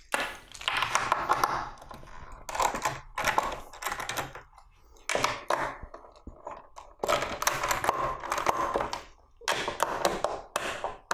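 Socket ratchet wrench clicking in repeated bursts as the nuts on the crosscut sled's fence bolts are loosened.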